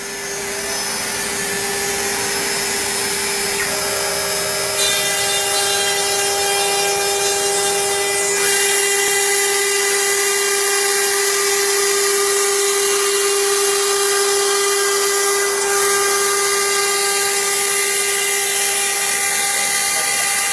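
CNC router spindle running at a steady whine while its engraving bit carves a pattern into MDF, the cutting adding a hiss. The sound steps up in loudness about five seconds in and again about eight seconds in.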